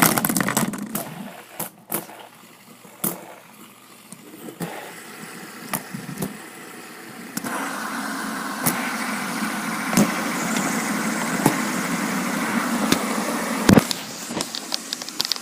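Several fidget spinners are flicked and set spinning one after another, with sharp clicks and knocks as they are handled. About seven seconds in, their steady whir sets in and holds.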